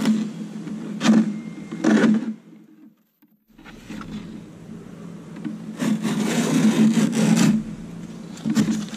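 Peel ply being torn off a cured fiberglass lay-up: short ripping pulls about one and two seconds in, then a longer rip of about a second and a half past the middle, and a brief one near the end.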